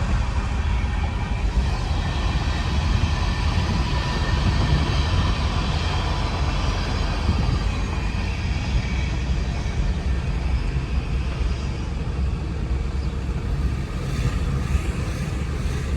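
Steady low rumble of a vehicle driving, engine and road noise without a break.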